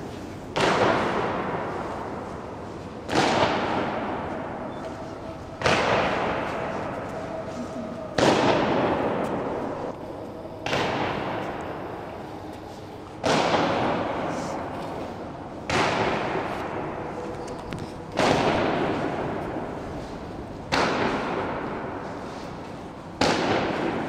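Booms repeating evenly about every two and a half seconds, each hitting sharply and dying away slowly in a long echo.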